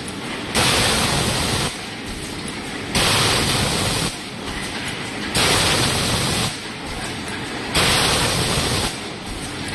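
Automatic PET bottle blow moulding machine running over a steady mechanical hum, with a loud compressed-air hiss about a second long every two and a half seconds, four times: each hiss marks one blowing cycle, the blow air venting as a set of bottles is formed.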